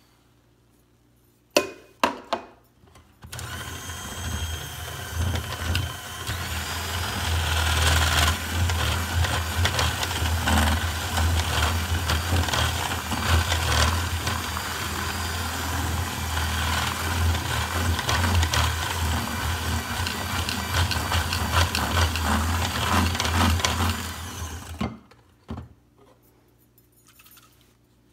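A few sharp knocks, then an electric hand mixer runs steadily for about twenty seconds, its beaters whirring through egg and sugar batter in a glass bowl, before it switches off.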